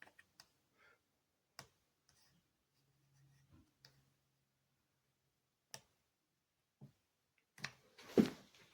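Scattered faint clicks and taps, with a faint low hum for about two seconds around the middle and a quicker run of louder clicks and knocks near the end.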